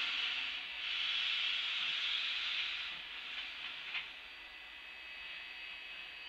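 Steam hissing from the front end of narrow-gauge steam locomotive No. 315, easing off after about three seconds, with a couple of short knocks just before it settles.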